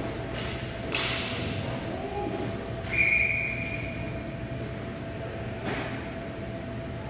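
A short, high whistle blast about three seconds in, between sharp knocks about a second in and near the end, over a steady hum.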